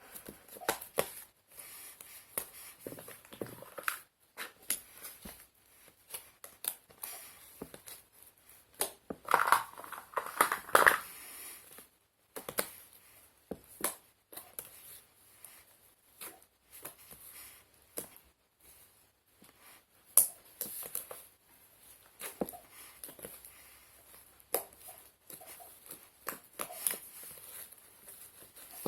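Slime being mixed, giving irregular sticky clicks, pops and crackles, loudest in a cluster about nine to eleven seconds in.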